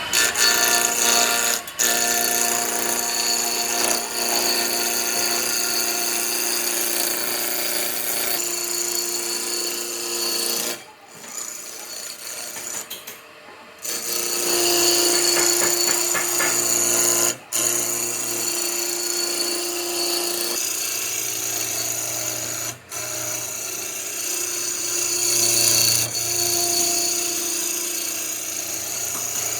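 An electric power tool running on wood with a steady motor whine. It cuts out for a moment several times and eases off for a few seconds about eleven seconds in.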